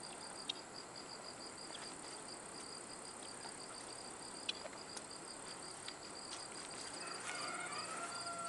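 Faint insects chirping in the grass: an even, rapid pulsing high trill that keeps on steadily, with a few light clicks.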